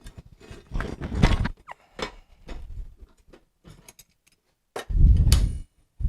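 Metal handling noise as the clamping straps are worked off a tempered knife blade and its steel flat bar: scattered clinks and scrapes, with two longer, heavier rubbing noises, one about a second in and one about five seconds in.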